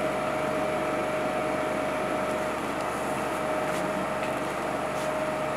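Steady machine hum with a thin whine that drops out about halfway through and comes back near the end, and a few faint ticks.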